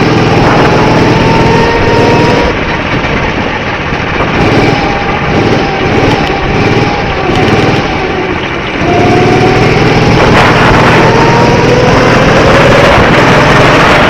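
Go-kart engine running hard with its pitch climbing, then easing off for several seconds about a fifth of the way in, then revving up again with a steadily rising pitch as it accelerates.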